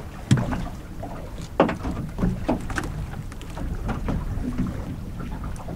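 Knocks and clicks of a fishing rod and a freshly caught whiting being handled aboard a small aluminium boat, over a low rumble of wind and water. The two loudest knocks come about a third of a second and a second and a half in.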